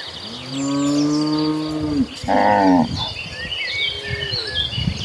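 Cattle mooing: one long, low moo, then a shorter, higher-pitched moo about two seconds in, with high chirping in the background in the second half.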